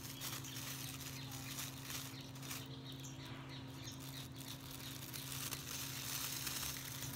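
Thin plastic bag crinkling and rustling in the hands as it is fitted over a grafted plant stem, a string of small irregular crackles, over a steady low hum.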